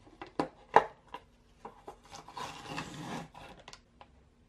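Plastic lid being pulled off a large Meiji Bulgaria yogurt tub: two sharp snapping clicks, the second the loudest, then about a second of rubbing and scraping at the tub, ending in a few light clicks.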